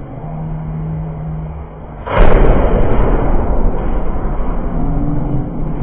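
Combat robots fighting: a steady motor hum, then about two seconds in a sudden, very loud crash of a weapon hit that overloads the microphone. The crash is followed by a rattling, rumbling noise that slowly dies down under the returning hum.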